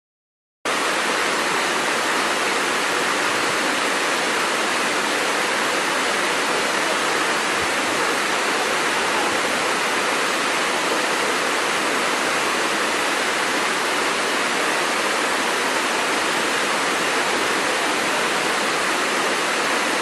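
Waterfall water rushing in a steady, unbroken hiss. It starts suddenly about a second in and does not change across the cut in the picture.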